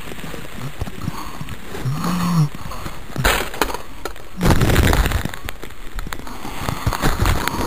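Baking soda and vinegar bottle bomb bursting: a sudden burst of noise about three seconds in that lasts about a second, followed by a louder low rumble.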